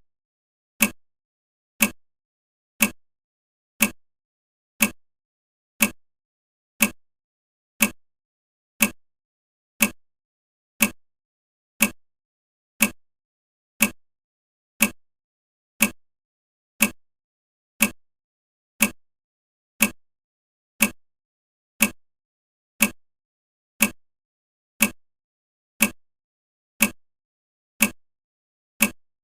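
Clock-style tick of a countdown timer, one short sharp click every second, each dying away quickly, evenly paced.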